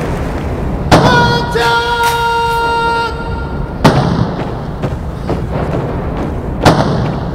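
Ceremonial artillery salute: a row of salute guns firing blank rounds in turn, three loud shots about three seconds apart. A held musical tone sounds between the first two shots.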